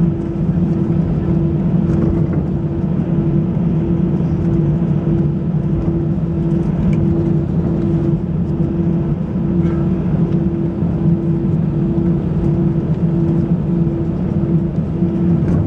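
Airbus A320 cabin noise with the engines running: a steady low rumble and a hum that pulses on and off a little over once a second.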